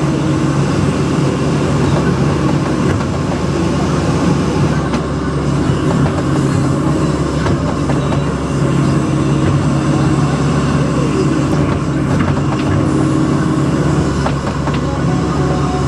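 Case CX160B hydraulic excavator at work: its diesel engine runs steadily with a low hum, under a clatter of small metallic clanks and squeaks.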